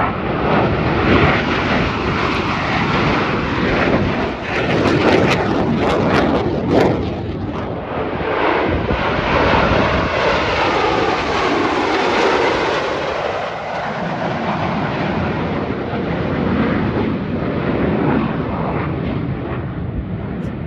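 Jet engine noise from a four-ship formation of Blue Angels F/A-18 Super Hornets flying past, a loud continuous rush with a crackling stretch partway in and a whine that shifts in pitch as the jets go by.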